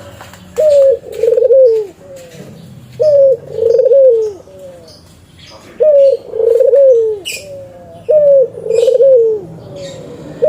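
Spotted dove (tekukur) cooing: four phrases about two and a half seconds apart, each a short note followed by a longer rolling coo that drops in pitch at its end. Faint high chirps of other small birds sound between the phrases.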